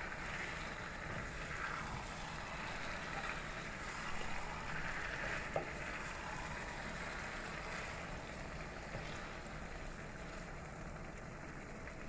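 Cauliflower and potato curry sizzling in the pan, a steady hiss, with one sharp click about halfway through.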